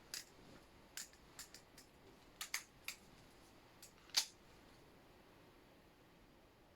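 Butterfly knife (balisong) being flipped: sharp metallic clicks as the handles and blade knock together, coming irregularly over the first four seconds or so, the loudest just after four seconds.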